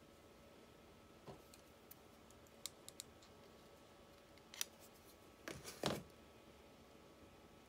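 Faint, scattered metal clicks and light knocks as parts of a Fiat 126 starter motor, its solenoid and housing, are handled and turned over, with the loudest knocks about six seconds in.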